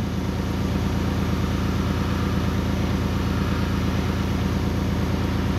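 Small airbrush compressor running with a steady, pulsing hum, while the airbrush sprays paint at about 20 PSI with a light hiss.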